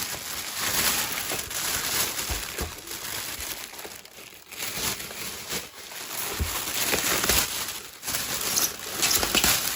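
Packaging crinkling and rustling in bursts as an espresso machine is unwrapped and handled, with a few low knocks.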